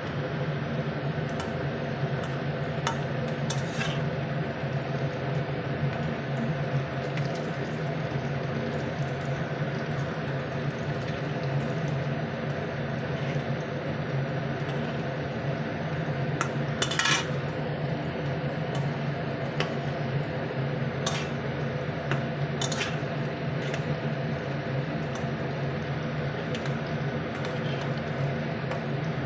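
Pakoras deep-frying in a pan of oil, sizzling steadily, with a metal spoon or slotted ladle clinking and scraping against the pan now and then. The loudest scrape comes a little past halfway. A steady low hum runs underneath.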